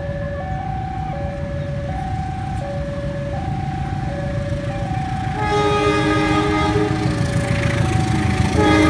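A level-crossing alarm sounds steadily, alternating between a higher and a lower tone about every half second. A diesel locomotive's horn blows one long multi-tone blast about five and a half seconds in, and a second blast starts near the end. Under both, a low rumble grows louder.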